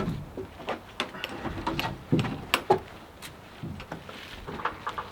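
Irregular sharp knocks and clicks mixed with short scraping sounds, like things being handled and set down.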